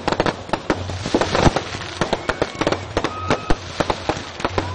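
Firecrackers bursting in a rapid, irregular crackle of sharp bangs, several a second, from a burning effigy packed with crackers.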